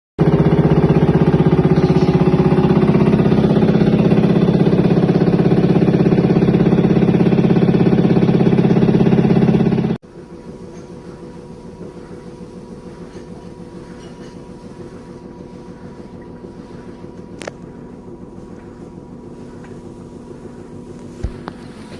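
Washing machine on its spin cycle knocking loudly, a fast steady hammering. About ten seconds in it cuts to a much quieter steady spinning rumble with a faint high hum and a couple of single clicks or knocks.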